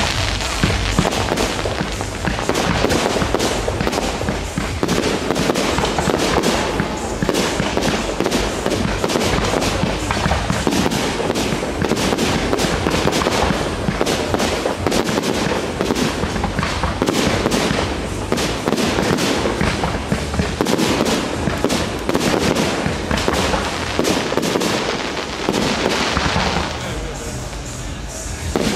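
Fireworks display: shells bursting and crackling in rapid, almost continuous succession, with comets launching. The barrage thins briefly near the end before picking up again.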